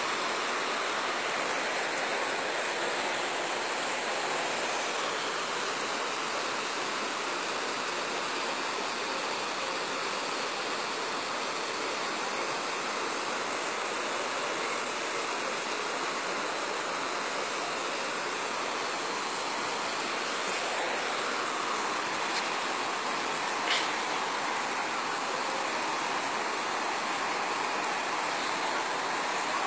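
Floodwater flowing fast over a road, a steady rushing. One brief click about three-quarters of the way through.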